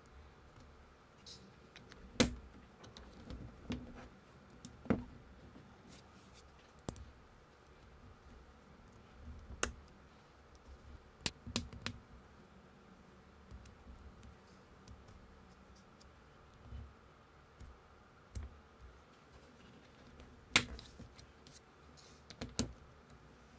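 DUODUO Lego-compatible plastic bricks clicking and snapping together as small pieces are fitted by hand, with soft handling rustle in between. The clicks come singly and irregularly, the sharpest a little over two seconds in and again near the end.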